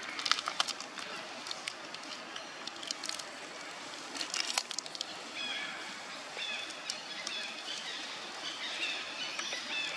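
Dry leaf litter rustling and crackling, with clusters of sharp clicks early and again about halfway through. From about halfway on, short high chirps repeat over and over.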